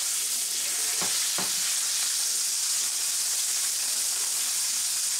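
Pounded rib steak searing in a very hot frying pan with olive oil: a steady sizzle. Two light taps of metal tongs about a second in.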